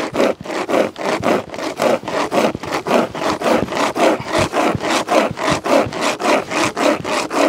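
Nordic Pocket Saw, a hand-pulled steel chain with cutter teeth, sawing through a sugar maple log. It is drawn back and forth in quick, even rasping strokes, about three to four a second.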